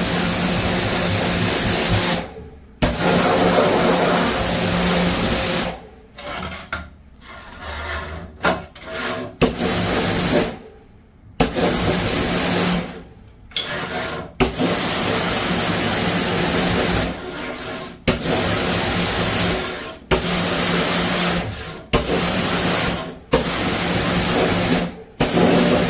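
High-pressure cleaning spray hissing in long bursts over a steady pump hum, cutting off and starting again about ten times with short pauses between.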